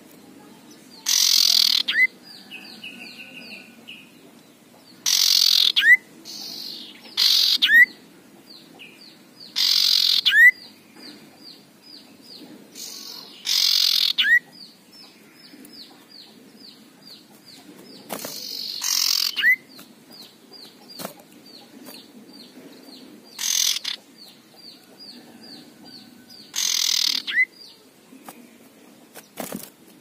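Male common iora giving its harsh, rasping 'ngekrek' call about eight times, a few seconds apart. Each call ends in a short upward-sliding whistle.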